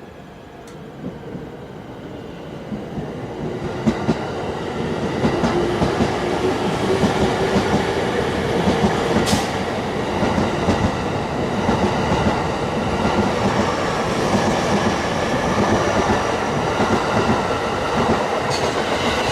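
A train approaching and running past. It grows louder over the first six seconds, then keeps up a steady rumble with rapid clatter of the wheels over the rail joints.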